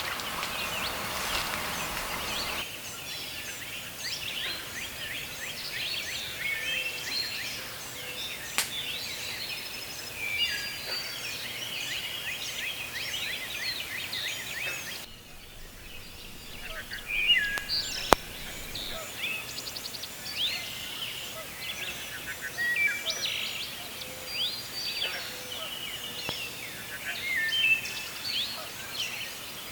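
Wild birds chirping and singing, many short overlapping calls over a steady outdoor hiss. The background shifts abruptly twice, and there is one sharp click about 18 seconds in.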